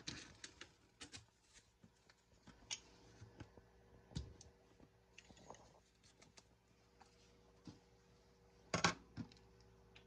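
Quiet room with scattered light clicks and ticks, and a short cluster of louder knocks about nine seconds in.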